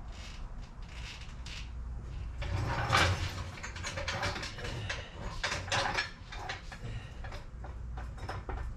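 Scattered clicks, knocks and scraping of tools and equipment being handled in a workshop, with a louder clatter about three seconds in, most likely while a support is set under the car's transmission.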